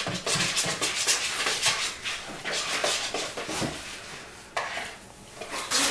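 A spoon scraping and clinking against a mixing bowl while stirring slime, in a quick run of short scrapes and knocks that eases off past the middle, with a few more near the end.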